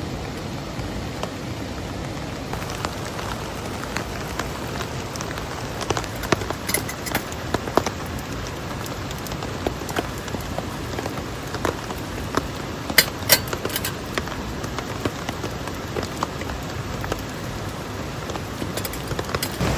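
Steady rain, with a hiss and scattered sharp drop ticks; two of the loudest ticks come about two-thirds of the way in.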